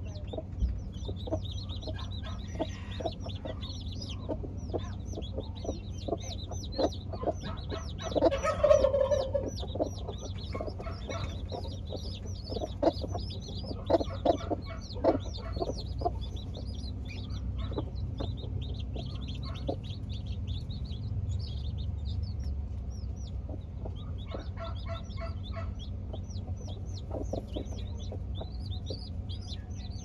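Young chicks peeping over and over in short, high, falling chirps while broody hens cluck low among them, with a louder hen call about eight seconds in. A steady low hum runs underneath.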